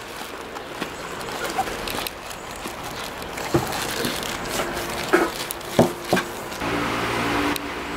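Plastic bags crinkling and a cardboard parts box being handled, irregular rustling with a few sharper knocks. A steady hum comes in near the end.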